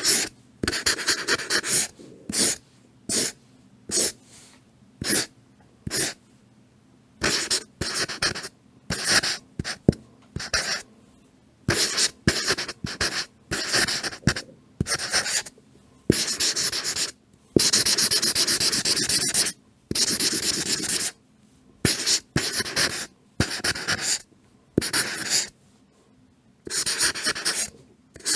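Marker pen writing: repeated strokes of scratchy felt-tip noise, mostly short and quick with pauses between, and one longer run of about three seconds past the middle.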